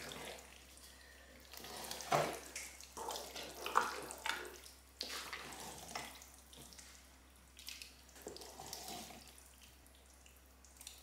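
Wooden spoon stirring thick creamy pasta in a pot: soft, irregular wet squelches and sloshes of the sauce.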